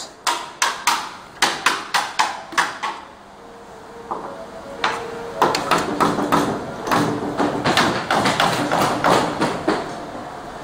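Sliding toughened-glass shower doors run by hand along their aluminium frame on roller wheels. A series of sharp knocks over the first few seconds, then a dense rolling rattle through the second half.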